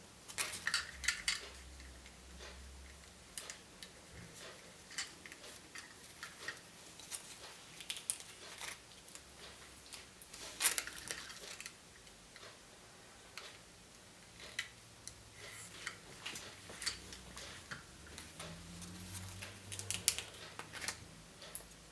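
Irregular sharp clicks, taps and light crinkles of small plastic toy capsules and wrappers being handled and opened by hand, with a few louder snaps.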